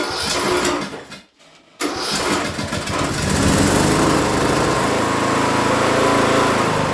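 Troy-Bilt Pony lawn tractor engine being started: a brief first try, a short pause, then it catches about two seconds in and settles into a steady run.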